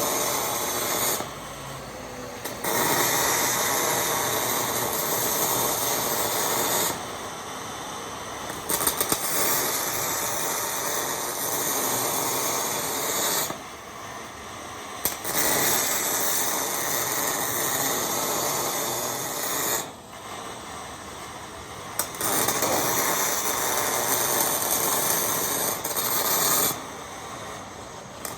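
MIG welding arc crackling on steel hex mesh, in four runs of about four to five seconds each, with short breaks of a second or two between welds.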